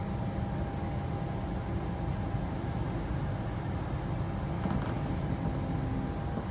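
Interior running noise of a Queensland Rail NGR (New Generation Rollingstock) electric train in motion: a steady low rumble with a faint steady whine above it.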